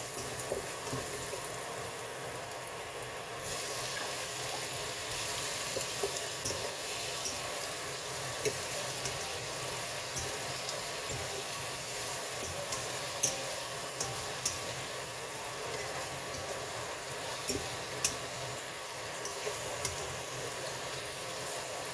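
Garlic and shrimp sizzling in hot oil in a wok, the sizzle growing louder and hissier about three and a half seconds in as the shrimp go into the pan. A few sharp clicks come from the spatula striking the wok as they are stirred.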